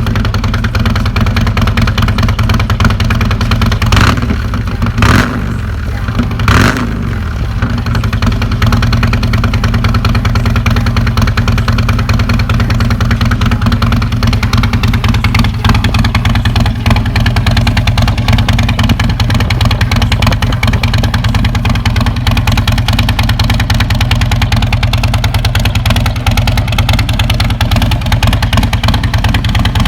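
2017 Harley-Davidson Street Glide's Milwaukee-Eight V-twin on its existing exhaust, just started: three quick throttle blips in the first several seconds, then a steady, loping idle.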